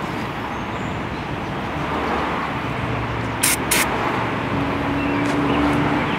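Steady road-traffic noise that grows slightly louder. A low steady hum comes in over the second half, and there are two sharp clicks about three and a half seconds in.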